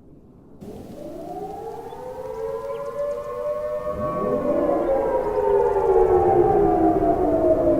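Civil defense siren winding up from silence, its tones rising and growing louder; a second siren tone rises in about four seconds in, and the pitch then drifts slowly down.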